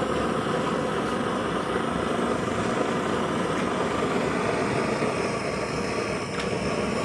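Steady rushing noise of a lit stove burner under a kadai of oil that is heating up.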